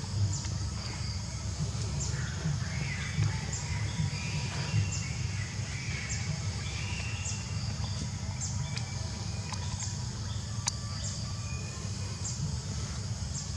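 Outdoor ambience of birds chirping over a steady high buzz with faint ticks about once a second, and a constant low rumble underneath.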